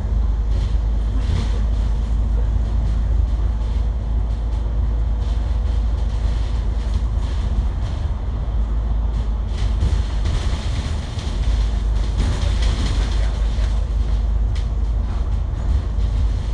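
Cabin noise inside a moving Kowloon Motor Bus: a steady low engine and road rumble, with a hiss of tyre and wind noise that grows stronger in the second half.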